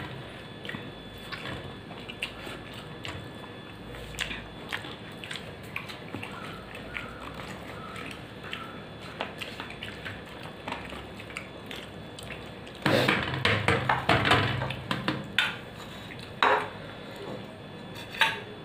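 Fingers mixing rice on a steel plate, with small clicks and scrapes, and chewing. About two-thirds of the way through comes a louder, rough burst of rapid sharp sounds lasting about two seconds, from an unknown source.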